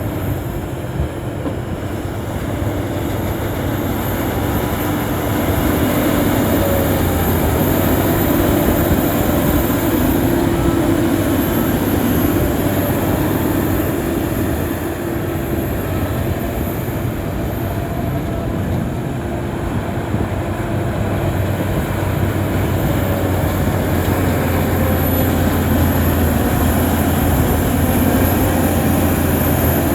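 Crawler bulldozer working, its diesel engine running steadily with continuous heavy machinery and track noise.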